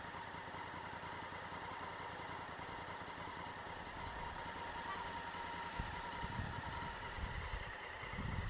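Honda Africa Twin CRF1000L's parallel-twin engine idling quietly at a stop, then pulling away, with low rumbling from about six seconds in.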